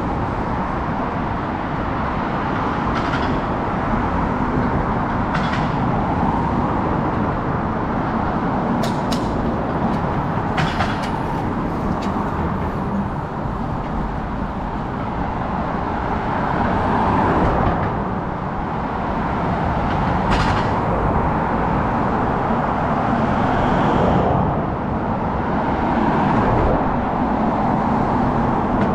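Steady city street traffic noise, with motor vehicles such as cars and buses passing. A few short, sharp clicks or hisses break through it.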